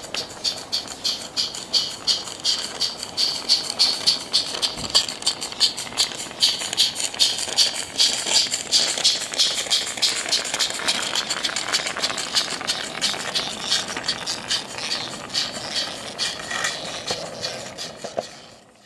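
Live-steam 16mm-scale garden-railway locomotive chuffing past with a train of timber-loaded wagons: a quick, even beat of exhaust puffs over a hiss, getting louder as it passes close by and then fading, with wheels rattling on the track.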